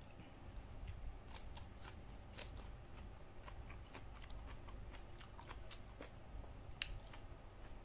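Quiet eating by hand: scattered soft clicks and smacks from chewing and from fingers working rice on a plastic plate, with one sharper click near the end.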